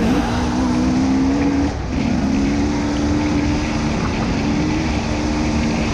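Off-road dirt bike engine running at steady high revs over a rushing noise; the revs dip briefly about two seconds in, then pick up and hold again.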